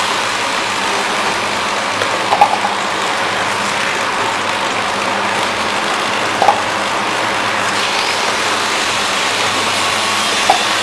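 Automatic water cup filling and sealing machine running with a steady mechanical hiss and whir, and a short sharp clack about every four seconds as it cycles.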